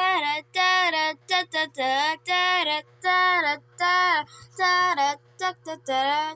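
High singing voice in a quick string of short sung notes, each sliding down in pitch at its end.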